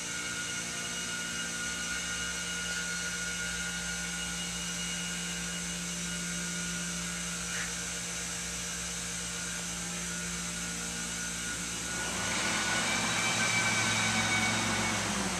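Running textile-mill machinery: a steady hum with several held tones. About twelve seconds in, a louder rushing whir joins it and ends with a short falling tone near the end.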